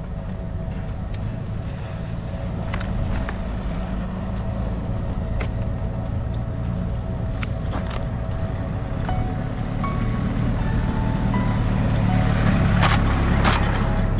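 A large engine running steadily with a low hum, with a few scattered clicks and knocks; it grows a little louder about ten seconds in.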